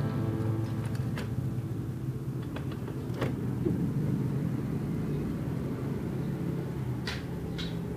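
Steady low background rumble, with a few sharp light clicks of metal lathe parts being handled and fitted together.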